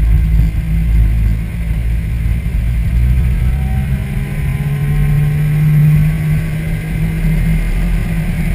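Car driving along a road, heard from a camera on its front grille: a steady low rumble of engine, tyres and wind, with a low hum that swells about five seconds in.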